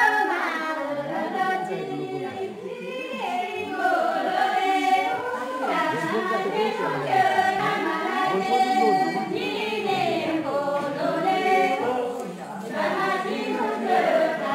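Group of men and women singing a Kinnauri folk song together in chorus, the voices overlapping and swelling on long held notes.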